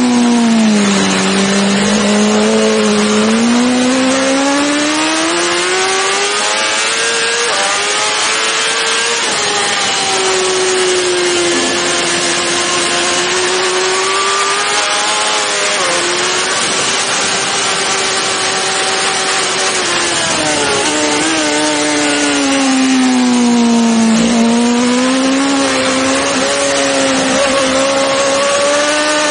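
BMW S1000RR superbike's inline-four engine at racing speed, with heavy wind rush. The revs fall about a second in, climb steadily, and hold high with brief dips. Near the end they sink again and then climb once more.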